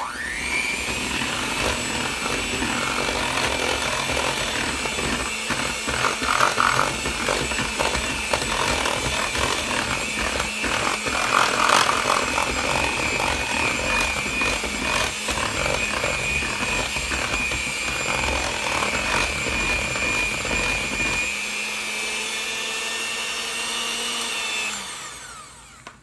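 Electric hand mixer running with a steady whine, its beaters churning chocolate cake batter in a plastic bowl. A few seconds before the end the churning stops and the motor runs on alone, then switches off and winds down.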